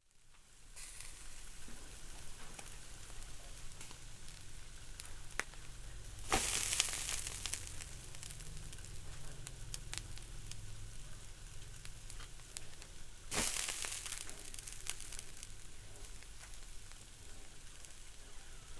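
Fish sizzling on a grill: a steady frying hiss dotted with sharp crackles. It fades in at the start and swells louder twice, about six seconds in and again around thirteen seconds.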